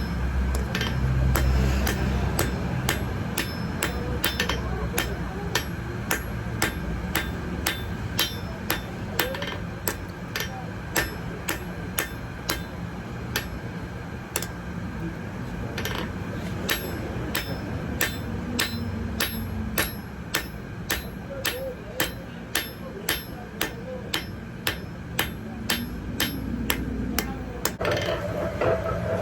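Hand hammer striking metal on an anvil in a steady forging rhythm, about two blows a second, over a steady low background noise.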